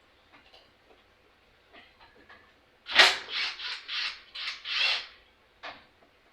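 A 1/4-inch drive socket ratchet working in a quick run of about seven harsh, scratchy strokes about three seconds in, with a last short one just before the end, loosening the auto choke from the carburetor base. Light clicks of tool handling come before it.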